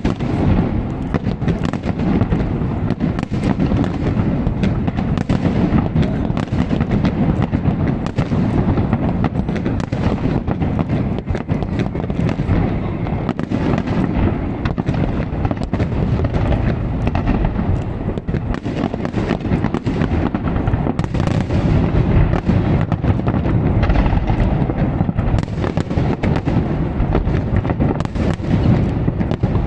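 Large aerial fireworks display: a dense, continuous barrage of shell bursts and crackling, many bangs overlapping into a constant rumble.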